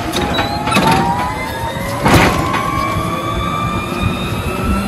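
Forklift running while it manoeuvres with a pallet: a motor whine that glides up and down in pitch, with a few knocks, the loudest about two seconds in.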